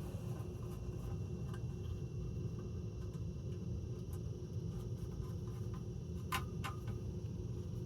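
Steady low room hum with a faint high whine, and two small handling clicks close together about six and a half seconds in.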